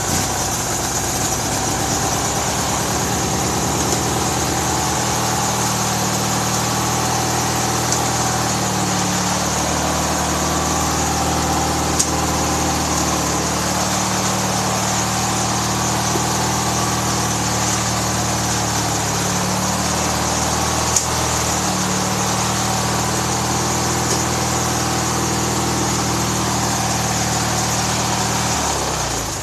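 MTD riding mower's small gasoline engine running steadily just after starting, running well after its repair, with a couple of small shifts in pitch; the sound drops away near the end.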